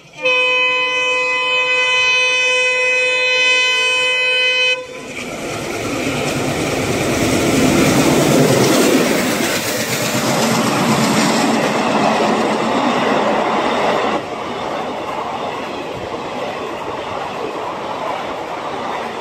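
Indian Railways WDM3D diesel locomotive blowing its horn in one long steady blast of about four and a half seconds as it approaches. It then passes at speed, engine and wheel noise swelling to a peak, and its passenger coaches roll by with a clickety-clack over the rail joints.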